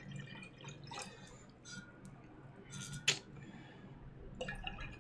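Apple juice being poured from a glass jug into a cup: faint trickling and dripping, with a sharp click about three seconds in.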